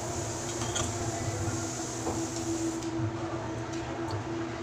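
Steady machine drone with a constant hum, and a few faint light clicks from a chrome P-trap drain pipe being handled and fitted.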